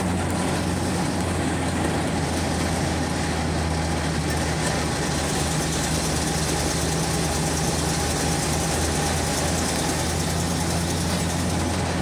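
Vintage military halftrack's engine running steadily, heard from inside the cab as the vehicle drives along, with a constant low hum.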